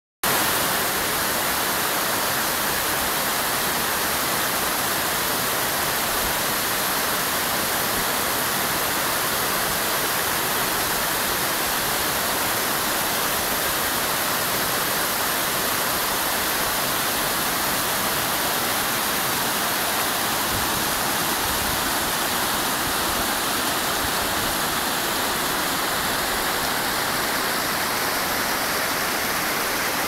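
Waterfall and the rocky stream at its foot: a steady, unbroken rush of falling and churning water.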